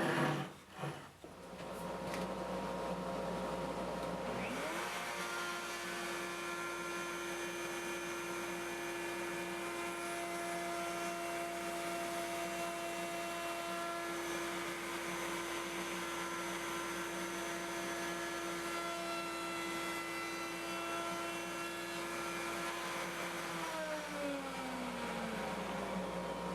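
Table-mounted router with a slot-cutter bit spinning up, running at a steady high whine for about twenty seconds, then spinning down near the end. A steady rushing noise starts about two seconds in and runs under it throughout.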